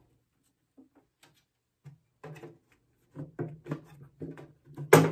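Handling noises from a small novelty mini-locker box: scattered faint clicks, then a run of light knocks and taps in the second half as it is turned and its door worked, with the sharpest knock near the end.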